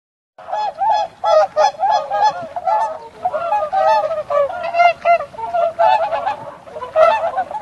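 Swans honking: a rapid run of short, nasal calls, several overlapping, starting about half a second in.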